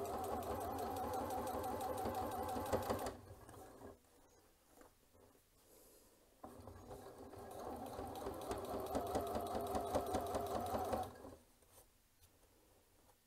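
Janome C30 sewing machine stitching a straight top stitch through fabric and zipper tape, in two runs of a few seconds each. It stops about three seconds in and starts again about three seconds later.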